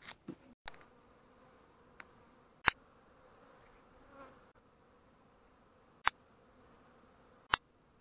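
Honey bees humming faintly and steadily around their hives on their first spring cleansing flight. Three sharp clicks, the loudest sounds, cut through the hum, one a little before the middle and two near the end.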